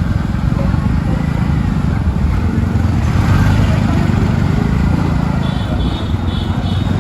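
City road traffic: a close engine runs steadily with a dense low rumble, and a few short high horn beeps sound near the end.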